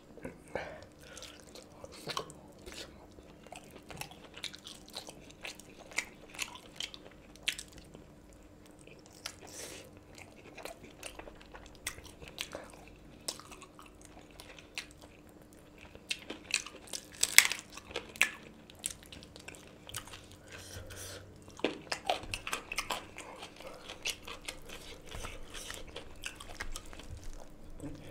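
Close-miked chewing and biting as a person eats rice, curry and chicken by hand: irregular wet mouth clicks and smacks with some crunching bites, the loudest cluster about two thirds of the way through.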